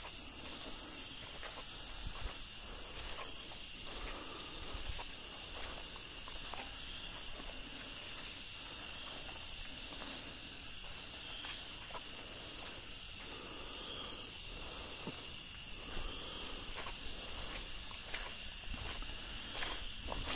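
A steady, high-pitched chorus of night insects, several unbroken trilling bands held at the same pitch, with soft, irregular footfalls and rustles on the ground below it.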